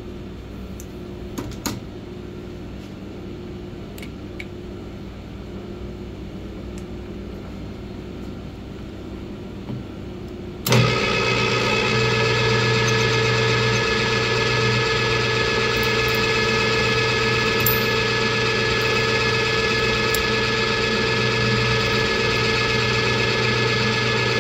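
Milling machine switched on about eleven seconds in, after a quieter stretch of low hum; its spindle then runs steadily, with a whine of several steady tones, while the cutter works down into an aluminium heat sink's fins.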